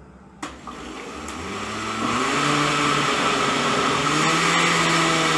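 Countertop blender switched on with a click about half a second in, mixing a liquid batter of eggs, yogurt and oil. Its motor rises in pitch as it comes up to speed over the next second or two, then runs steadily and loudly.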